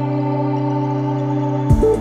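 Background music: a held ambient synthesizer chord, joined near the end by a beat and a moving bass line.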